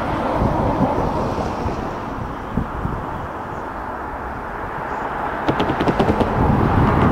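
Siemens Nexas electric train approaching at low speed: a steady rumble that grows louder near the end, when wheels start clicking over rail joints.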